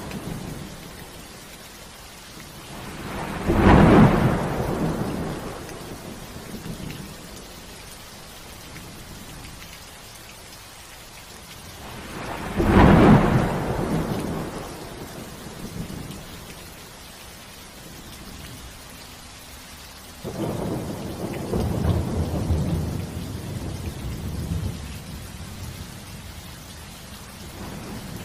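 Steady rain falling through a thunderstorm, with three peals of thunder: a loud clap about four seconds in and another about thirteen seconds in, each rumbling away over a couple of seconds, then a rolling rumble that starts suddenly about twenty seconds in and fades over several seconds.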